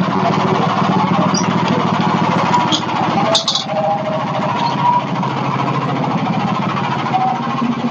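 Gasoline engine of a Hudson Patriot bandsaw sawmill running steadily, with a few sharp metallic clicks about three and a half seconds in.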